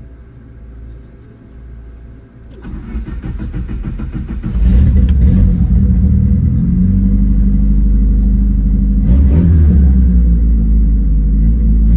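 VW Gol's turbocharged, carburetted AP engine cranking about two and a half seconds in, catching, and settling into a loud steady run, with a short rev about nine seconds in.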